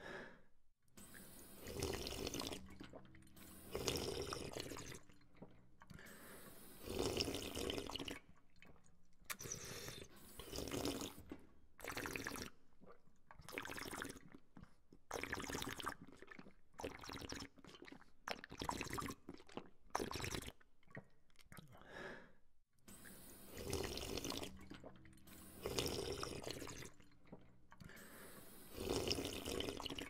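Someone drinking from a drinking fountain: the water stream splashes and slurps in uneven bursts a second or two long, with short gaps between them.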